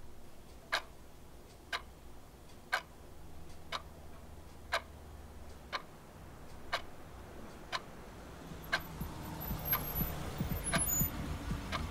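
Clock ticking steadily, about once a second. About eight seconds in, the low rumble of a vehicle engine swells up beneath the ticking and grows louder toward the end.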